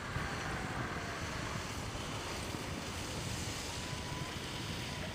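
Wind buffeting the microphone: gusty low rumbling over a steady hiss, with a faint thin whistle-like tone for about the last second.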